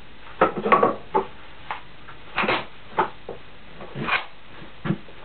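Irregular metallic clinks and knocks of steel bolts, washers and nuts being handled and fitted against a milling machine's cast-iron head, a cluster of them about half a second to a second in, then single knocks every half second or so.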